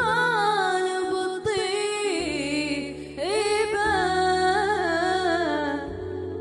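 A girl singing an Iraqi song in long, ornamented phrases with wavering, gliding pitch, over a backing of steady sustained low notes.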